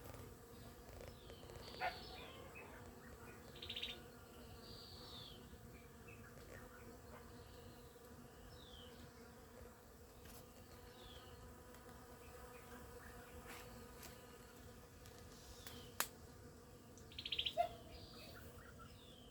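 Faint, steady hum of bees working flowering coffee bushes. A bird gives short falling chirps now and then, with two brief rattling trills, and there are a couple of sharp clicks.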